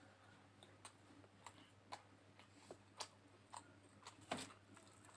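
Faint chewing of an egg roll: soft, wet mouth clicks about every half second to a second, with a louder bite into the roll about four seconds in.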